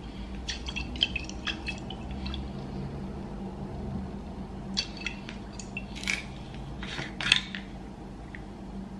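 Kitchen handling at a glass measuring jug: scattered light clinks and taps of a spoon and bottle against the glass, with liquid poured in. A steady low hum runs underneath.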